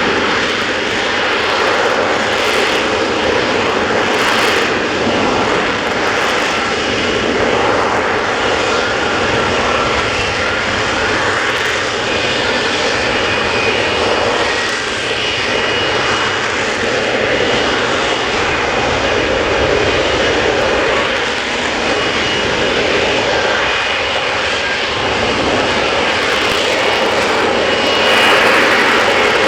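Lockheed Martin F-35B hovering on its Pratt & Whitney F135 engine and lift fan: loud, steady jet noise with a faint high whine over it, swelling slightly near the end.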